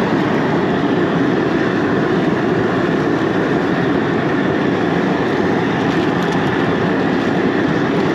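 High-pressure propane burner under a large crawfish boil pot, burning steadily with an even rushing noise as the seasoned water heats toward a boil.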